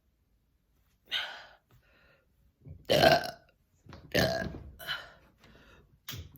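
A person burping on command: about five deliberate burps in a row with short pauses between them, the loudest about three seconds in and a small one near the end.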